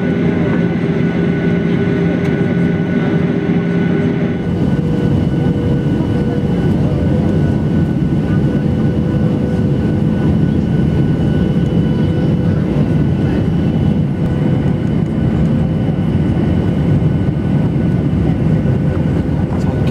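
Steady cabin noise of a Boeing 737-800 descending on approach, heard from a seat by the wing: the rush of air with the run of its CFM56-7B engines underneath. About four seconds in the pitch of the hum changes: a lower drone drops out and a slightly higher tone takes its place.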